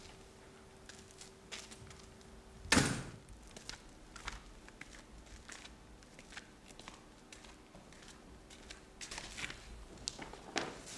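A single heavy thud about three seconds in, among scattered light knocks and footsteps on a wooden stage floor, over a faint steady hum. Near the end the knocks come thicker, as a case is handled.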